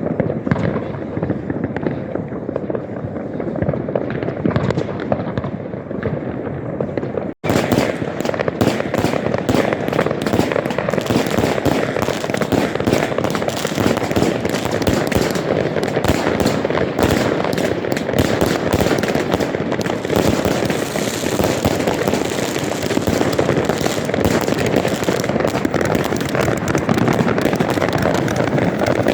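Dense New Year's Eve fireworks and firecrackers going off continuously, a rapid unbroken run of bangs and crackles. After a brief break about seven seconds in, the barrage is thicker and brighter.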